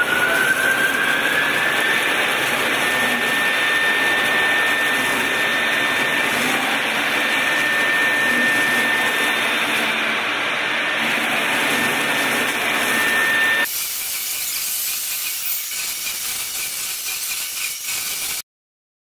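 CNC router spindle running with a steady high whine while its bit mills a foam block, with a continuous hissing cutting noise; the whine rises slightly in pitch in the first two seconds, then holds. About fourteen seconds in the sound changes abruptly to a quieter, thinner cutting noise, and it cuts off suddenly near the end.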